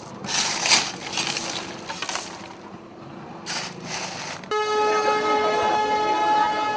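Irregular noisy clatter, then about four and a half seconds in a train horn starts and holds one steady tone.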